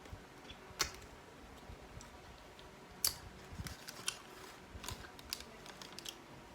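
Close-miked eating sounds: irregular crisp clicks and crunches of chicken wings being bitten, chewed and handled, the sharpest about a second in and around three to five seconds in.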